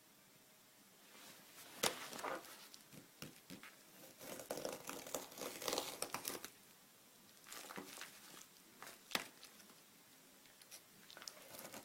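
Paper mail packaging being torn and crumpled open by hand: irregular crinkling and ripping, with a couple of sharper snaps. The paper is tough and hard to tear.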